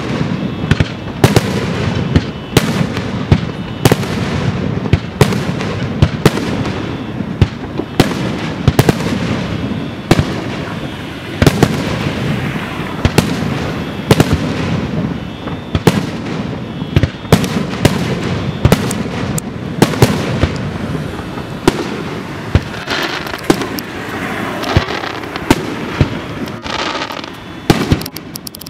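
Aerial firework shells bursting one after another: sharp, loud bangs about one or two a second, overlapping, with a continuous low rumble between them.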